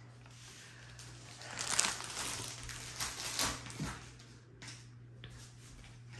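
Rustling and crinkling of a large diamond-painting canvas and its plastic cover film as it is shifted on a table, in a few irregular swells, over a steady low hum.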